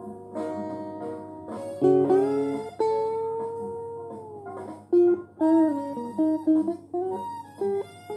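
Electric guitar played solo, single-note lead lines with string bends: a note bent up about two seconds in and held, sliding back down after a couple of seconds, then a run of short picked notes.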